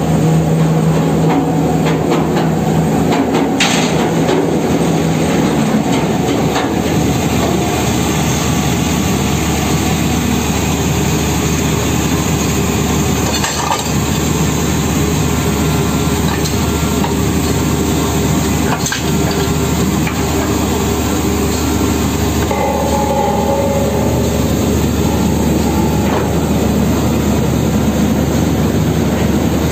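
Drilling rig machinery running loudly and steadily, a dense mechanical din with a low engine hum beneath it. A few sharp metal clanks from pipe handling at the rotary table stand out over it.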